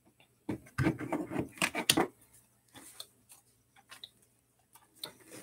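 Stacks of trading cards being picked up and moved across a tabletop: a flurry of taps, clicks and rustles from the card edges for a second or two, then a few scattered light ticks.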